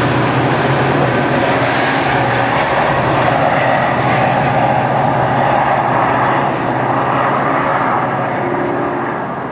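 Metro-North GP40FH-2 diesel locomotive 4903 pushing a passenger train away along the track: a steady engine hum with rail and wheel noise, easing off over the last few seconds as it recedes.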